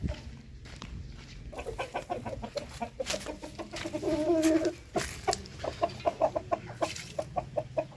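Chickens clucking, many short calls overlapping, with one longer drawn-out call a little after four seconds and rapid clucks through the second half.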